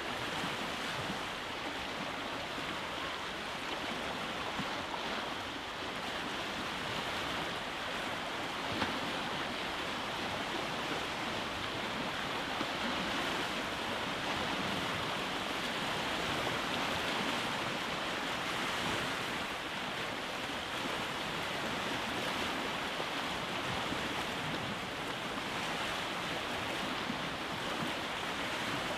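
Waves breaking on a rocky shore: a steady wash of surf that swells and eases gently, with no single distinct crash.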